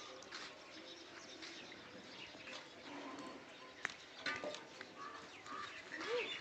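Faint farmyard sounds: a goat tugging and chewing at a leafy branch, with rustling and a few sharp snaps, the loudest about four seconds in, while birds chirp in the background.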